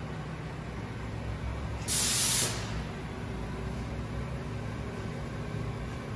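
Haas VF-3YT/50 CNC vertical mill running with a steady low hum. About two seconds in, a loud spraying hiss lasts about half a second.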